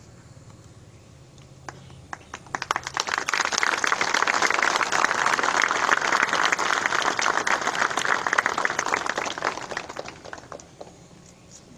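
Audience applauding: a few scattered claps about two seconds in swell into steady, full applause, which dies away near the end.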